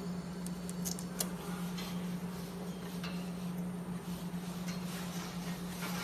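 Benchtop wire harness taping machine with a steady low hum, and scattered light clicks and rattles as the wire harness is handled at its taping head.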